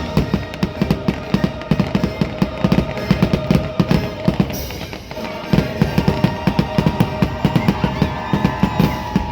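Fireworks going off in quick, irregular bangs over the show's loud soundtrack music with a held note and drums, with a brief lull about halfway through.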